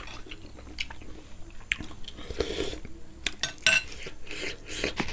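People chewing and biting into roasted pig head meat: a run of irregular short clicks and wet mouth smacks.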